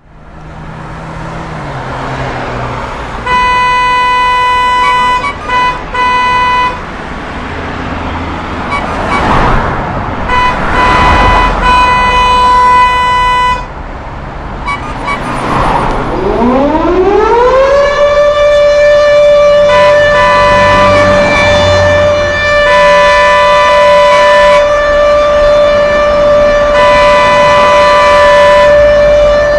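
A siren winds up from a low pitch to a high one about 16 seconds in and then holds steady, with horn-like blasts sounding on and off before it and over it, and passing traffic noise in between.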